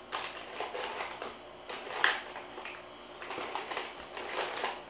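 Hand rummaging through a plastic bucket of drawing supplies: irregular small clicks and rattles, with a sharper clack about two seconds in.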